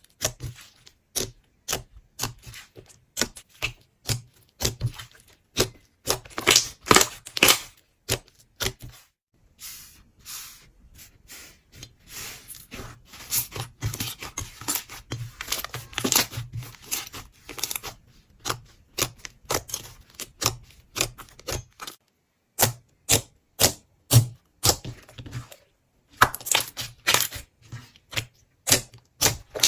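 Slime being squeezed and worked by hand, giving rapid runs of sharp crackling clicks and pops, with a couple of short pauses.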